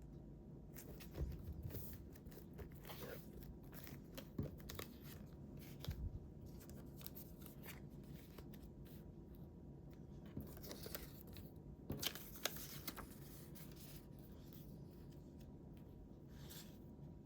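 Paper being handled and cut for a scrapbook: scattered soft rustles and snips, with a small cluster of them around the middle.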